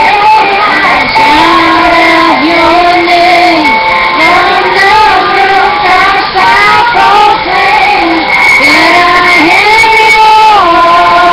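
A woman singing a slow melody, close to the microphone, with long held notes that slide from one pitch to the next.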